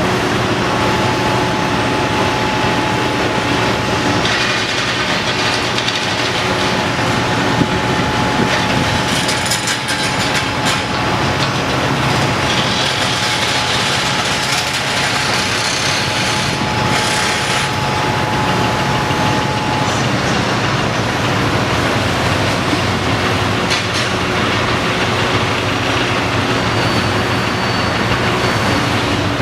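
Caterpillar 330D L excavator's C9 diesel engine running steadily under working load as the machine digs and piles mud. A thin steady whine stops about two-thirds of the way through, with a few knocks and stretches of hissing around the middle.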